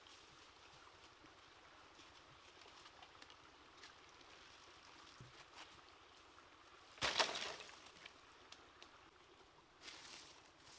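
Faint steady trickle of a stream. About seven seconds in, a bundle of dry firewood sticks is dropped onto the ground in one brief clattering crash. Near the end, dry leaves are rustled by hand.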